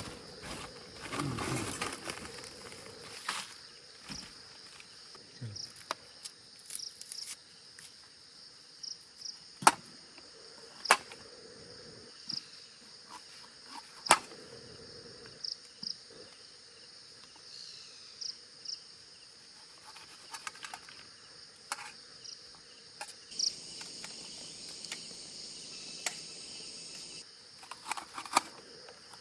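Insects chirring steadily in a high, even drone in the forest, with a few sharp clicks and knocks scattered through it, loudest about ten, eleven and fourteen seconds in.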